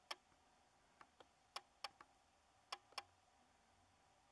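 Near silence broken by about seven sharp, short clicks, some in pairs about a quarter second apart; the high-flying jet itself is not heard.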